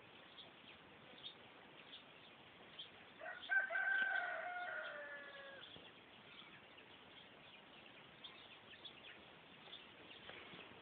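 A rooster crows once a few seconds in: one long call that falls away at the end.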